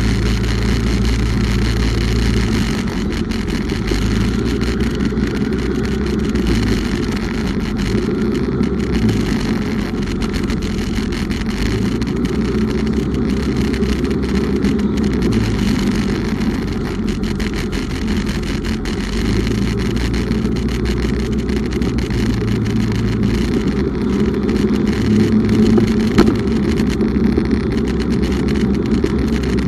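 Bumoto Regnum motorcycle on the move: a steady low rumble of engine and road noise with wind rushing over the microphone, holding an even level with no clear revving.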